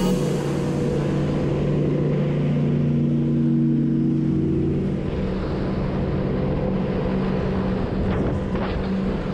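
Sea-Doo GTX 4-TEC personal watercraft's three-cylinder four-stroke engine running steadily at cruising speed, with water rushing along the hull. A little past the first second the engine note rises slightly, then eases back by about the fifth second.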